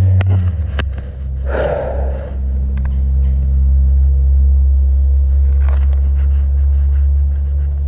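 A loud, steady low rumbling hum, like a motor running, dropping a little in pitch about half a second in. A brief rustle comes about a second and a half in.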